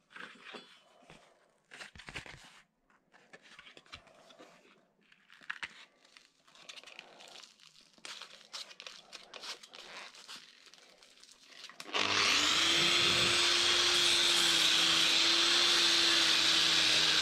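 Irregular scratching and handling noises, then about twelve seconds in a handheld angle grinder with a sanding disc starts suddenly and runs at a steady whine as it sands the cast bronze sword.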